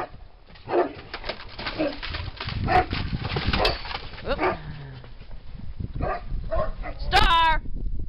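Dogs barking and yelping in a string of short calls, some sliding down in pitch, with the loudest and longest bark about seven seconds in.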